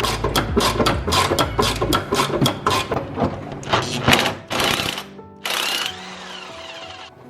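Background music over a fast, irregular clatter of hand tools knocking on metal, followed near the end by two short hissing bursts.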